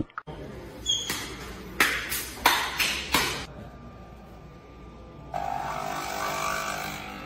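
Capsule coffee machine in use: a few sharp clicks and knocks as it is handled, then its pump starts about five seconds in and runs steadily while it brews into the cup.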